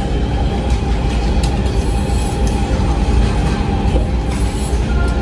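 Steady low rumble of background noise with a constant mid-pitched hum running through it, and a few faint light clicks.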